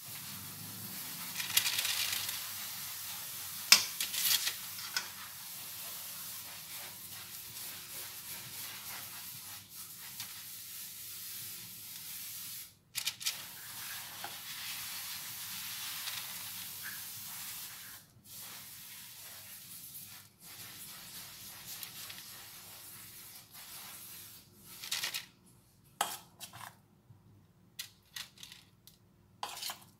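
Metal spoon scraping and clinking against a stainless steel bowl as a wet chicken and shrimp mixture is scooped out and dropped in portions onto parchment paper on a baking tray. There are several sharp clinks, the loudest about four seconds in.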